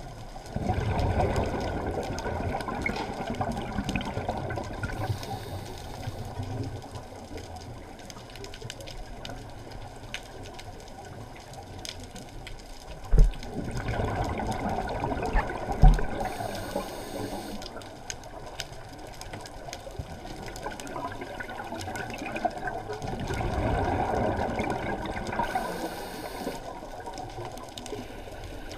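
Scuba regulator breathing, heard underwater through the camera housing: three long bubbling exhalations about ten seconds apart, each with a short high hiss near its end. Two dull knocks come a little before halfway, under three seconds apart.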